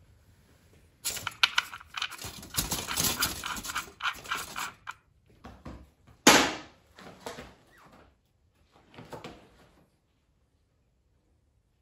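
Handling noise from a Yamaha Tracer 9 GT motorcycle being rocked side to side on a garage floor to drain the last oil from its sump: a run of scuffs and creaks, then one sharp knock about six seconds in, followed by softer scattered noises.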